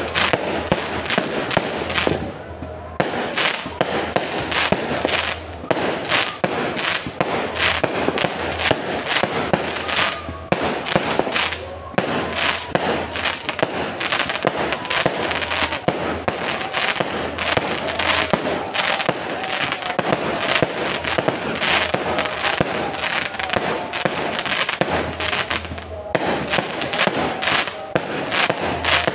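Fireworks going off in a rapid, continuous barrage: aerial bursts banging and crackling several times a second.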